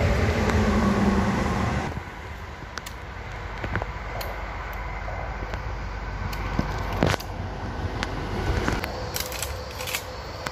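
Handling sounds as a Marlin 30-30 lever-action rifle is readied: rustling for the first two seconds, then scattered clicks and knocks over a steady outdoor background, the sharpest click about seven seconds in. It is not fired here.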